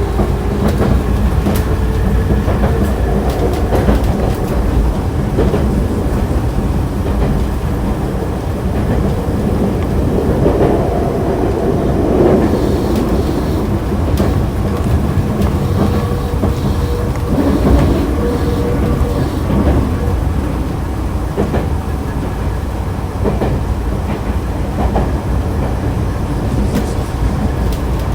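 Nankai Kada Line electric train running between stations, heard from on board: steady rumble of wheels on the rails with clicks from rail joints and a faint motor whine.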